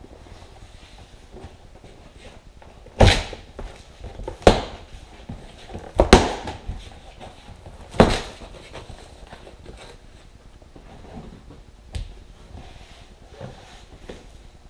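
A long cardboard shipping box being torn open by hand. There are several sharp rips and knocks a second or two apart, with the loudest in the middle, and quieter rustling of the cardboard between them.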